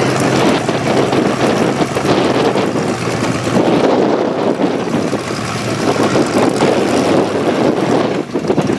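Off-road buggy's engine running hard under load as it climbs a steep dirt hill, loud and steady.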